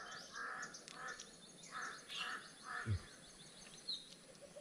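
A bird calling in a run of short, repeated notes, about two a second, with a brief low thump about three seconds in.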